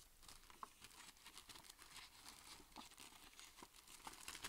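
Faint crinkling and light clicks of a small clear plastic zip bag being handled.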